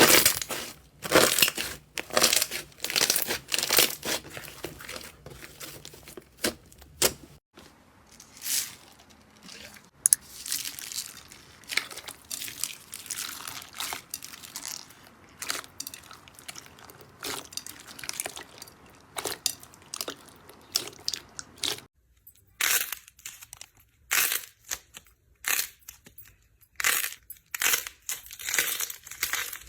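Slime being squeezed, pressed and pulled by hand, giving quick irregular bursts of crackling, crunching and squishing.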